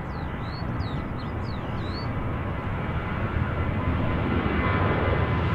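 Jet airliner engine roar that grows steadily louder, as a jet approaches or powers up. A few short bird chirps sound over it in the first two seconds.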